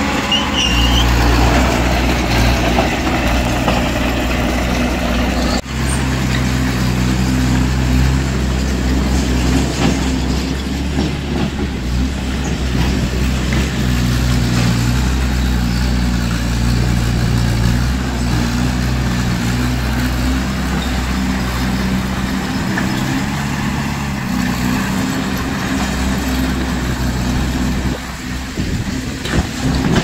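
Heavy diesel engine of construction machinery running steadily, a low even hum with a short break about five and a half seconds in. Near the end the engine hum fades and uneven knocking noise takes over.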